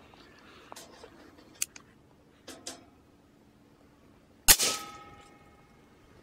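A single shot from a Chiappa Little Badger .22 LR single-shot rifle, about four and a half seconds in, followed by a brief ringing tone. A few faint clicks come before it.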